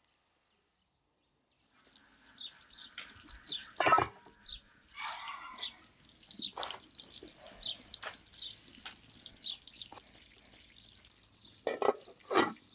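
Silent for about two seconds, then cooking sounds at a pot of boiling water over a wood fire: a short hiss a few seconds in, scattered clinks and knocks, and near the end two loud clanks of an aluminium pot lid. Birds chirp in the background.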